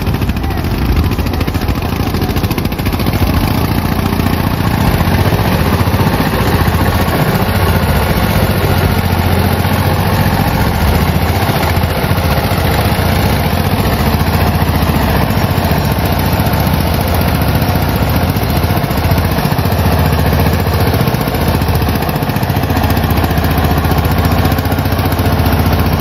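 Tractor diesel engine running steadily and loudly under load as it tows a heavily loaded rig.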